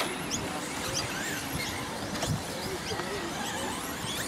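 Radio-controlled 2WD short course trucks racing on a dirt track, their electric motors whining in many short rising and falling pitches as the drivers throttle on and off.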